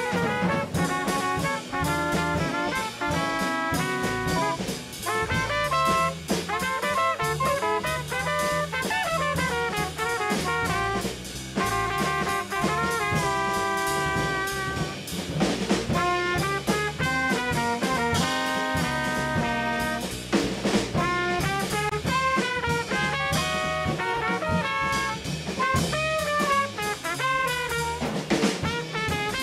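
Jazz quartet playing: a saxophone runs a busy melodic line of quick notes over drum kit, congas and bass.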